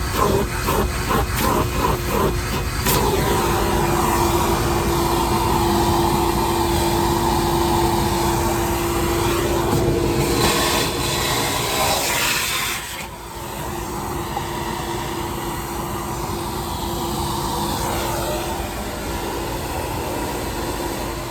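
Shop vacuum running with a steady motor hum. A rapid series of sharp knocks and clatters comes in the first few seconds as the nozzle picks up debris, and around the middle a brighter hissing rush of air that drops off sharply.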